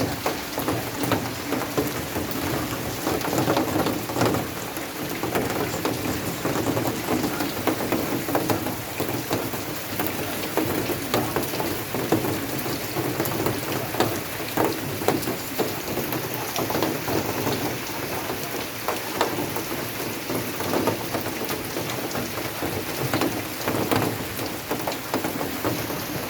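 Heavy rain falling steadily, with a dense patter of close drops splashing on a surface.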